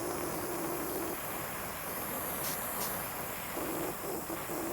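Blazer butane jeweller's torch burning with a steady hiss, with two short ticks about two and a half seconds in.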